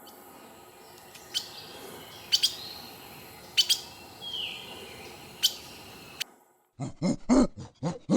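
Birds chirping in short sharp notes, one of them a falling whistle, over a faint hiss. After a brief pause near the end, an animal gives a loud run of about five deep, pulsed calls.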